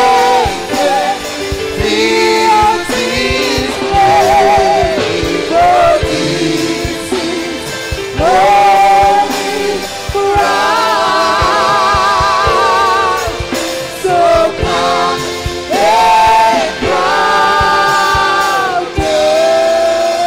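Gospel worship singing: several voices hold long notes together with vibrato in phrases of a few seconds, over a steady low beat.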